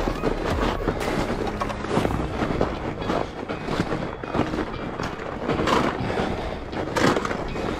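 Studded fat-bike tyres crunching and crackling through crusted, rutted snow as the bike is ridden, with an irregular run of small crunches and clicks.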